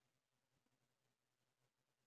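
Near silence: a faint low electrical hum and room tone.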